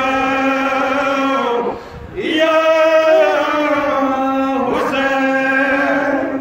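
A man's voice chanting a mourning lament (noha) in long, held notes. Two drawn-out phrases are separated by a short breath about two seconds in.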